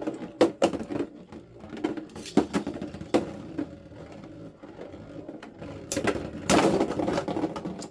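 Beyblade X spinning tops, the Wand Wizard attack type against the Shadow Shinobi defense type, clashing in a plastic battle stadium. Irregular sharp clicks and knocks come as the tops strike each other and the stadium walls, with a dense rattling stretch near the end.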